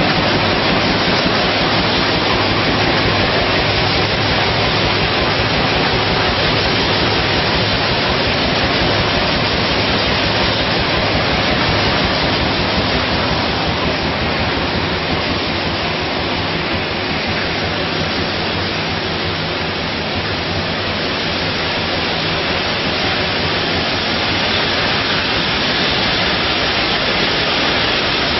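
A 24,000-bottle-an-hour bottling combiblock running at production speed: loud, steady machinery noise with no distinct knocks or pauses.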